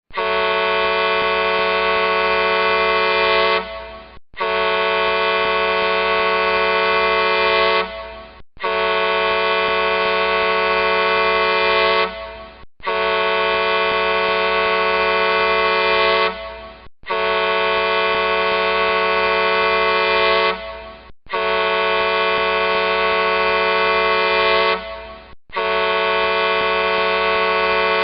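Large truck horn sounding in long, steady blasts, each about three and a half seconds, cut off with a short fading tail and repeated about every four seconds, seven times.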